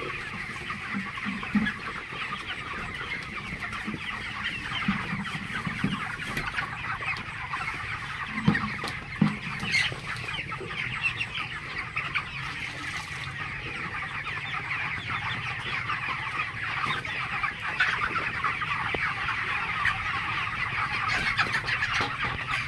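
A large flock of 28-day-old broiler chickens calling all at once: a steady chatter of many overlapping short, high calls.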